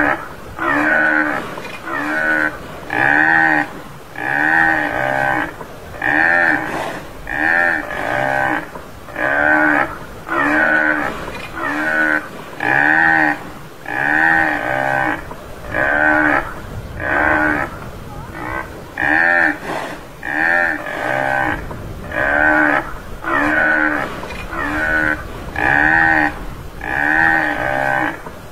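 Tamaraw (Mindoro dwarf buffalo) calling: short calls, each rising and falling in pitch, repeated about once a second at an even pace.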